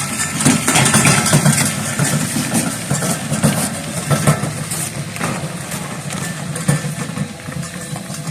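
Angle-iron welding cart rattling and rumbling as it is pushed around on its wheels, with a steady low rumble and irregular clanks and knocks from the loose metal frame.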